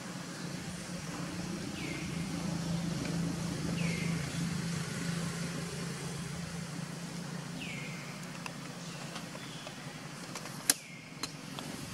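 Low, steady engine hum of a passing motor vehicle that swells and fades, with four short, high calls sliding downward and a sharp click near the end.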